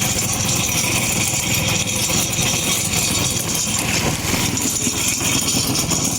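Small fishing boat's motor running steadily under way, with a broad rushing hiss over the engine rumble.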